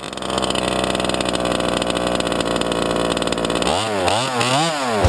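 HPI Baja 5T RC truck's small two-stroke gasoline engine idling steadily, then revved in about three quick throttle blips near the end, heard close from on board the truck.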